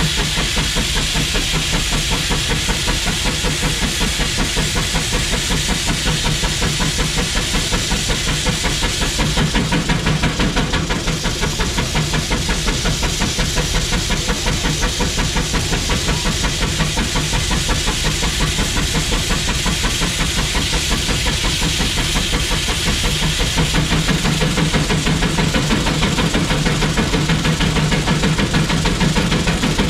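McLaren steam road locomotive working hard against a belt-driven dynamometer: a fast, steady exhaust beat with steam hiss, getting a little louder in the last few seconds.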